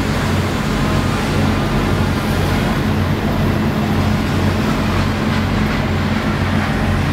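Fire engines' diesel engines running steadily while pumping water to the hose lines: a constant low drone under a broad rushing noise.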